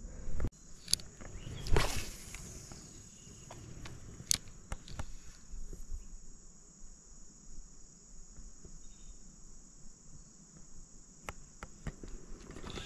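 Steady high-pitched drone of a summer insect chorus, with a louder knock and swish about two seconds in and a few sharp clicks from handling a fishing rod and spinning reel.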